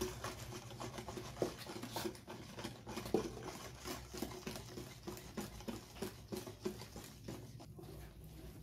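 Wire balloon whisk mixing thick chocolate cake batter in a plastic bowl: quick, irregular light scraping and tapping of the wires against the bowl.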